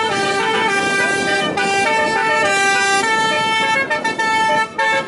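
Telolet multi-tone car horn playing a tune: loud held notes that step from pitch to pitch, with a couple of short breaks between phrases near the end.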